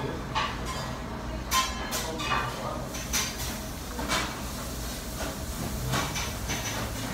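Steady low hum, with about seven short clicks and rustles scattered through it, from eating and handling food, utensils and containers.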